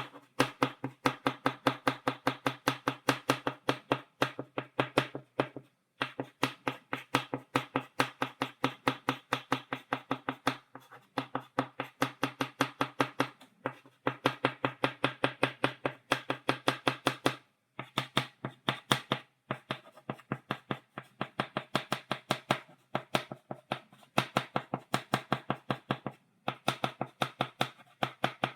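Chalk tapping on a blackboard in quick runs of sharp taps, several a second, as dots are stippled onto the board, with short pauses between runs.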